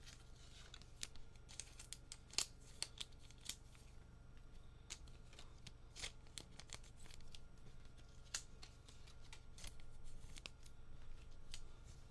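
Faint, irregular clicks and rustles of trading cards and their packaging being handled and shuffled by hand.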